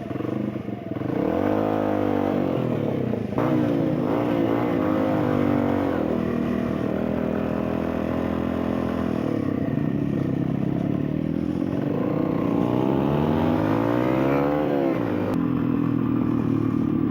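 Lexmoto Adrenaline 125cc supermoto's single-cylinder four-stroke engine pulling up through the gears under way. The pitch climbs, then drops sharply at a gear change about three seconds in and again near the end.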